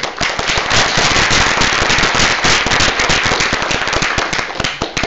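Audience applauding: many hands clapping at once, thinning out near the end.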